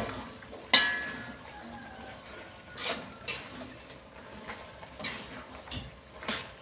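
Metal spatula knocking and scraping against a metal wok while stir-frying greens and tofu. One loud clang that rings on briefly comes about a second in, followed by several lighter knocks.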